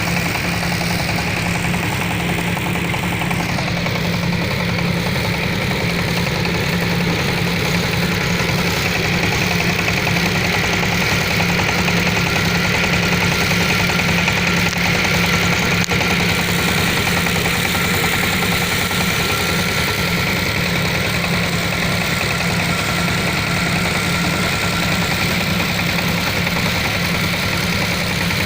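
Small engine of a mini tiller running steadily at a constant speed, with no change in pitch or level.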